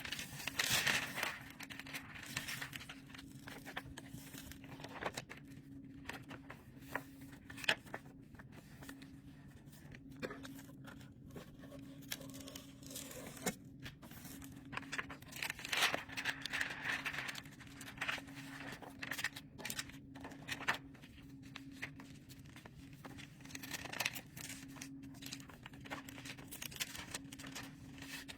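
Mylar book-jacket film crinkling and rustling in irregular bursts as it is handled around a library book, loudest near the start, about halfway through and again near the end. A steady low hum runs underneath.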